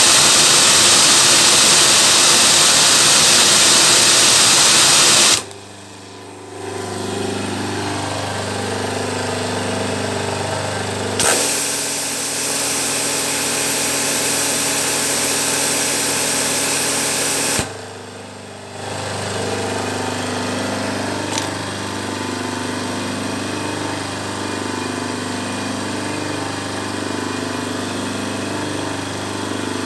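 High-pressure washer spraying: the water jet from the lance hisses loudly for about five seconds, stops, then sprays again for about six seconds over the running motor and plunger pump. Each time the spray stops, the machine dips briefly, then the pump runs on with a steady hum and a slow wavering beat.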